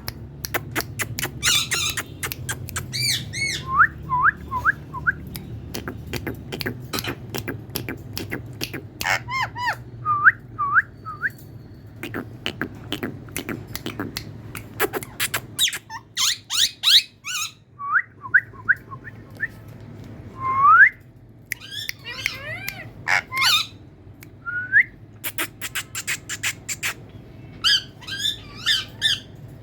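Pet parrot calling: a string of sharp squawks and clicks mixed with short rising whistles and warbling chatter.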